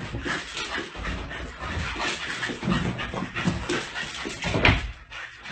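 A small dog panting, with quick, repeated breaths.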